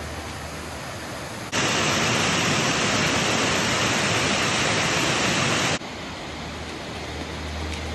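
Waterfall rushing steadily, swollen and full of water. About a second and a half in the rush jumps suddenly much louder and brighter, then drops back just as suddenly about six seconds in.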